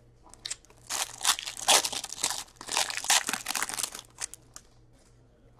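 Foil wrapper of a hockey card pack crinkling and crackling as the pack is opened and the cards are pulled out. The crinkling starts about a second in and stops after about four and a half seconds.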